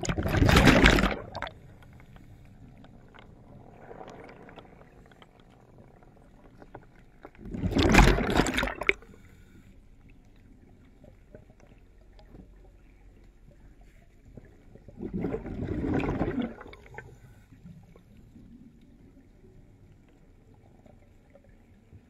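Bubbling water heard from under the surface: three rushes of bubbling about a second long, roughly seven to eight seconds apart, over a faint low murmur.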